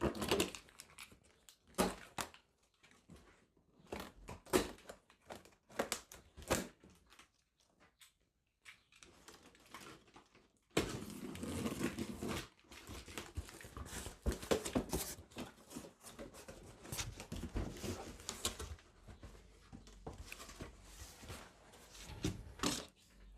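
A cardboard shipping box being opened and its packing handled: tearing, scraping and crinkling of cardboard and plastic wrapping. The noises come in scattered bursts at first and turn into busier, continuous rustling from about halfway.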